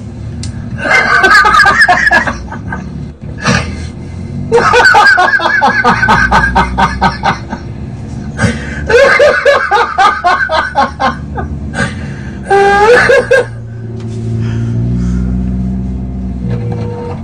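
A person laughing hard in four long bouts with short pauses between them, then a quieter low hum near the end.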